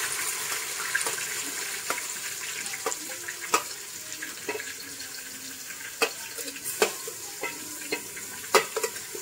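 Chopped onions dropping into hot oil in an aluminium pot: a steady sizzle of frying, with repeated sharp metal clinks as a steel slotted spoon scrapes the onions off a steel plate.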